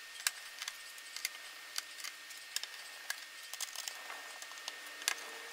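Scattered light clicks and taps, irregular and spread throughout, from hands handling small screws and parts on a laptop's metal chassis.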